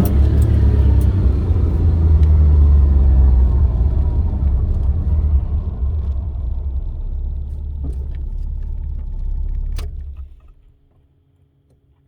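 Honda Today kei car with a steady low engine rumble that slowly eases off; after a click about ten seconds in, the engine sound stops and near silence follows.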